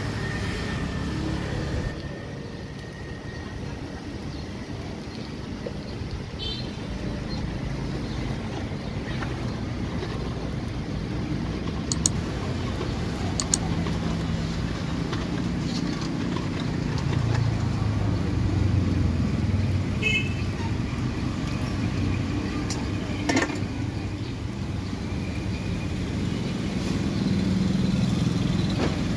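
Street traffic running by, a steady low rumble with engine sound swelling as vehicles pass twice. A few sharp clinks stand out over it.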